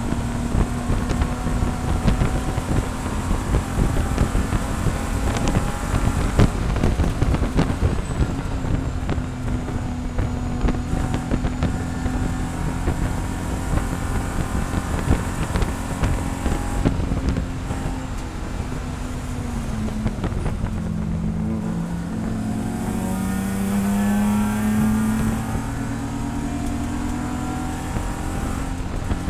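Inside the cabin of a BMW E46 SpecE46 race car at racing speed: the straight-six engine runs hard at high revs, with road and chassis rattles and clicks over it. About two-thirds of the way through, the engine pitch drops sharply and then climbs again in steps as the car slows for a corner and accelerates away.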